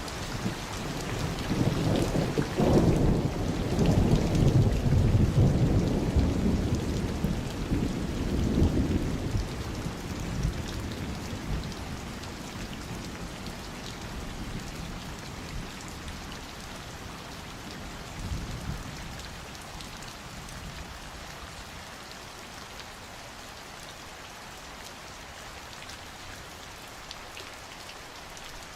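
Steady summer rain falling, with a long roll of thunder that builds over the first few seconds, peaks about five seconds in and dies away by about twelve seconds; a brief fainter rumble follows a little past the middle.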